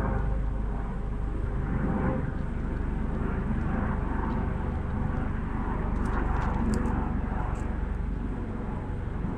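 Steady low rumble of a distant engine, swelling and easing slightly, with a few faint high bird chirps about six to eight seconds in.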